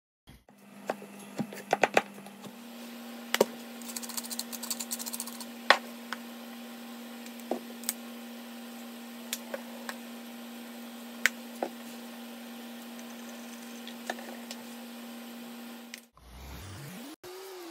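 Knife chopping zucchini on a cutting board, a quick run of sharp knocks, then a steady low hum with scattered clicks and taps of kitchen utensils.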